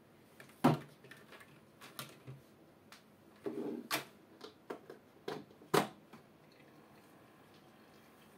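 A run of sharp clicks and knocks from hands handling an aquarium air pump's power cable and plug at the wall socket, the loudest about a second in, stopping about six seconds in.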